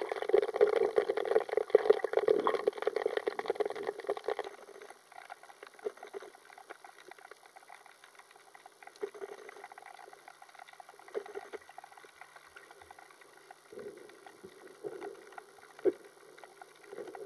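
Water noise picked up by an underwater camera: a dense crackling gurgle for the first four seconds or so, then quieter with scattered pops and short gurgles.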